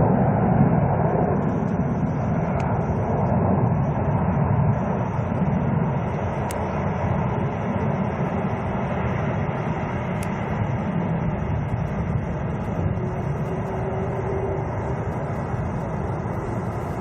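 Airbus A380's Rolls-Royce Trent 900 jet engines as a steady roar during a flying display, slowly fading.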